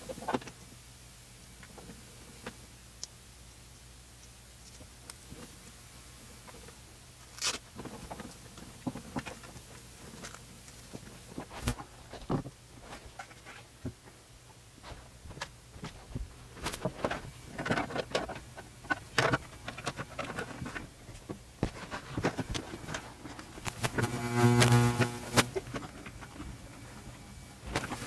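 Hands working with computer cables and cable-management materials: rustling, clicks and knocks of cables, plastic and a cable wrap being handled and fitted, over a steady low hum. Near the end comes a short rasping zip.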